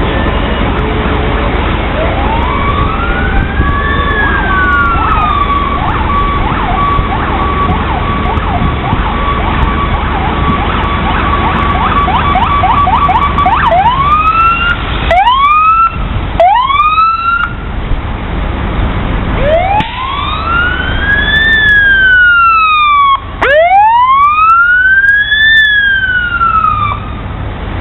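Electronic emergency-vehicle sirens sounding as the procession passes. First comes a slow wail that rises and falls, then a long fast yelp over a steady tone, then three quick rising whoops, then two more long wails near the end. A steady low rumble runs underneath.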